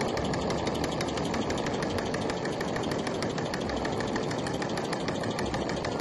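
Mamod toy steam engine running steadily, its oscillating cylinder ticking in a rapid, even rhythm, with the steady rush of a blowtorch flame heating the boiler underneath.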